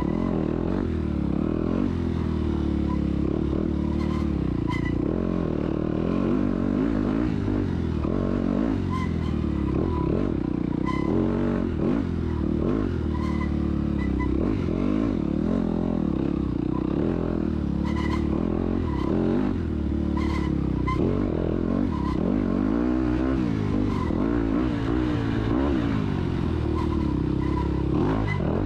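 Dirt bike engine heard up close from onboard, revving up and falling off again and again as the rider works the throttle and gears. Sharp knocks and clatter from the bike over rough ground are mixed in.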